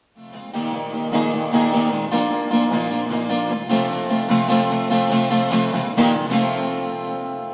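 Intro music: strummed guitar chords at a steady rhythm, the last chord ringing out and fading near the end.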